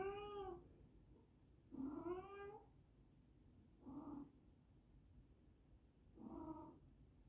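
A cat meowing repeatedly: four short calls, each rising then falling in pitch, about two seconds apart. The third call is the shortest.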